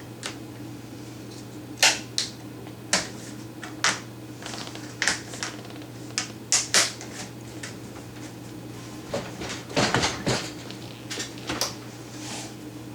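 Irregular clicks, taps and clanks of hand tools on a dishwasher's metal frame and fittings as it is being worked loose for removal, with a steady low hum underneath.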